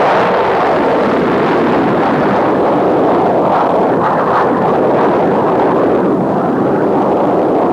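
Rocket engine firing at launch: a loud, steady rush of exhaust noise, heard on an old 1950s television soundtrack.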